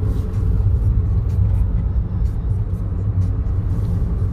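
Car road noise heard from inside the cabin while driving: a steady low rumble of tyres and engine.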